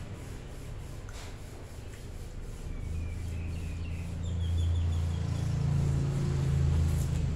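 Low rumble of road traffic that builds and grows louder from a couple of seconds in, as a vehicle approaches. A bird chirps a few short notes in the middle.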